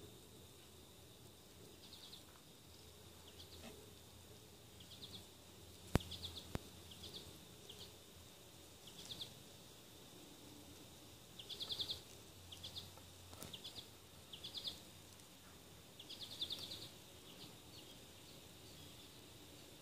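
Faint, high-pitched chirping: short clusters of rapid pulses repeated at irregular gaps, with one sharp click about six seconds in.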